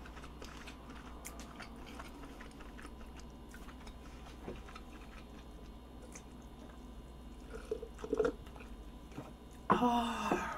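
Quiet chewing and small mouth clicks, then a few gulps from a glass near the end, followed by a brief voiced exhale.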